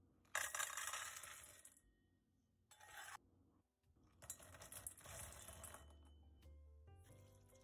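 Raw cashews poured from a metal measuring cup into a stainless steel bowl, rattling and clinking against the metal in three pours, the first the loudest and the second short.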